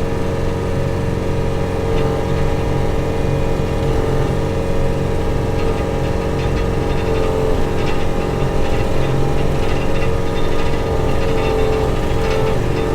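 Skid steer loader engine running steadily at high revs with a steady whine, its pitch dipping slightly a few times as it takes load pushing brush and tree debris.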